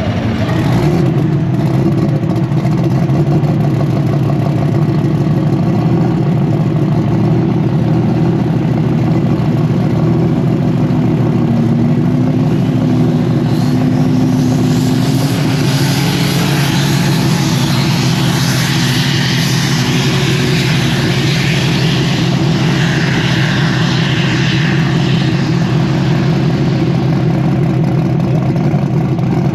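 Engine running steadily at an even speed, with a hiss joining in about halfway through and fading out near the end.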